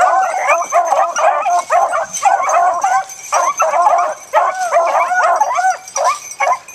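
A pack of beagles baying and yelping together without a pause, several voices overlapping. This is hounds giving tongue as they run a rabbit's scent trail.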